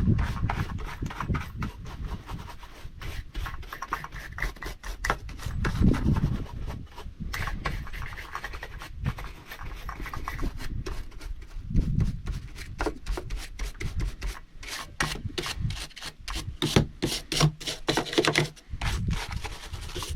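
Rapid, repeated scraping and brushing strokes on a chainsaw as sawdust and grime are cleaned off it, with an occasional low knock; the strokes come quicker towards the end.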